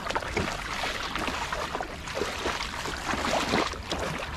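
Water splashing and sloshing around a person wading in shallow water while hauling a wet gill net in by hand, with many small irregular splashes.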